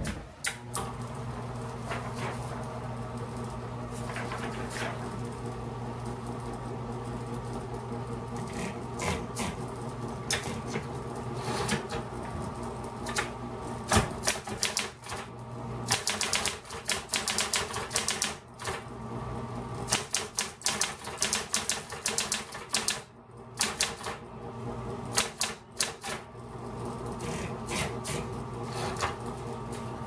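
1972 Smith Corona Coronet Automatic 12 electric typewriter: its motor hums steadily, with a few scattered clicks, then about halfway through the keys strike in quick runs of typing.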